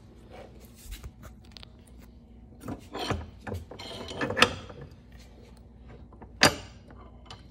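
Small metal clicks and knocks as a thin silverplate disc is handled and set in place under a bench hole punch, with two sharp knocks, the louder about four seconds in and another about six and a half seconds in.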